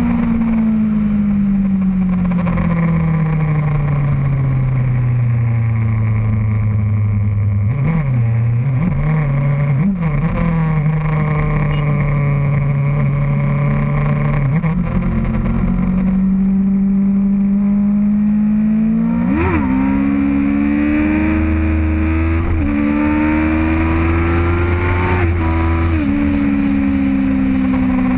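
Motorcycle engine heard from on board while riding. Its note falls as the bike slows, holds fairly steady with a few quick blips, then climbs with several short breaks, as at gear changes, and eases off again near the end.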